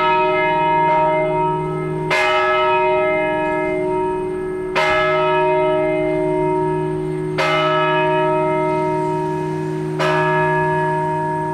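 Peal of Paccard bronze church bells, tuned E-flat, F and G, ringing for Mass in full peal. Clear strokes come about every two and a half seconds, each leaving a long ringing hum under the next.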